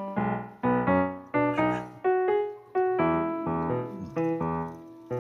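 Background piano music: a slow melody of single notes, each struck and fading, about two or three a second.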